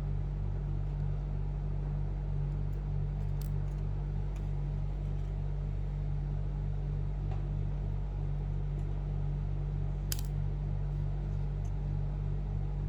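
Steady low hum with a faint pulsing, over which a few small, faint clicks sound as tiny laptop parts and screws are handled. The sharpest click comes about ten seconds in.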